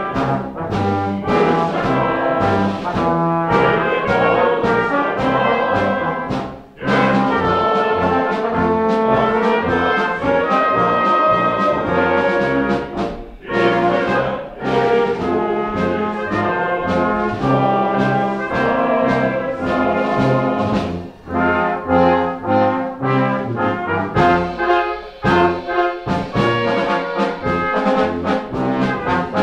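Wind band playing, with trombones and trumpets to the fore in full chords and brief pauses between phrases.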